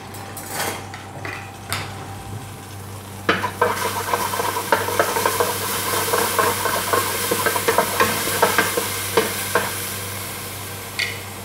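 A cooking utensil scraping and knocking against the inside of an aluminium pot, which rings with each stroke, over a hiss of hot oil sizzling as the pot heats for sautéing onions. The clatter starts about three seconds in and stops a little before the end, as the sizzle fades.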